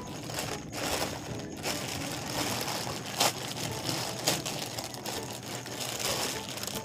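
Plastic courier mailer pouch crinkling and crackling as it is pulled open by hand, with a few sharper crackles as the plastic gives.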